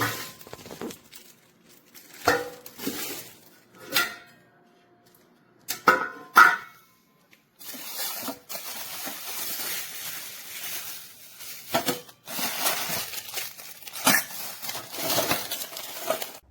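Knocks and clinks of chafing-dish parts being handled, some followed by a short ringing note. From about halfway on, a long stretch of rustling packaging such as bubble wrap, broken by a couple of knocks.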